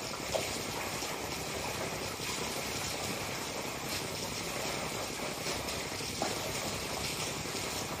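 Steady rush of water splashing into a backyard swimming pool, with a couple of faint clicks about a third of a second in and again near six seconds.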